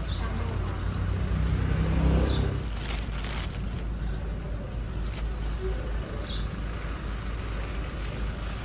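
A road vehicle passing close by: its engine rumble builds to a peak about two seconds in, then dies away, leaving a steady low traffic hum. Thin plastic bags crinkle now and then as the fruit is dropped into them.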